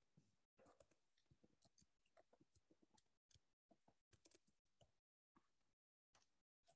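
Faint typing on a computer keyboard: a run of quick, irregular key clicks, cutting out to dead silence in places.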